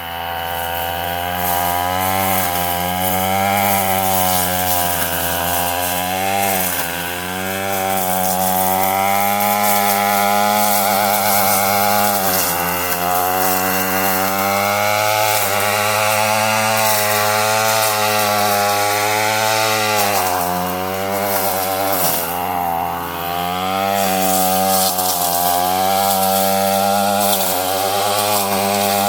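Two-stroke weed eater with a brush-cutting blade running at high revs and cutting heavy brush. Its engine pitch keeps dipping and recovering as the blade bites, with deeper slowdowns about a third of the way in and again past two-thirds.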